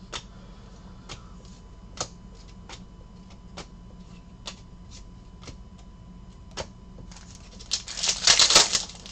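Trading cards clicking one by one as they are flipped through a hand-held stack, a light snap every half-second to second. Near the end comes a loud crinkling and tearing of a foil card-pack wrapper being opened, lasting about a second.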